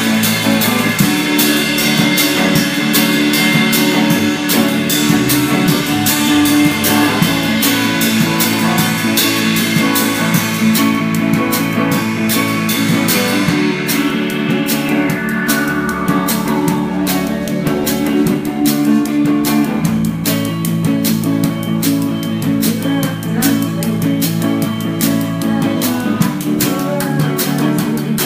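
Instrumental rock music: guitars over a steady drum beat, with a falling sweep about halfway through.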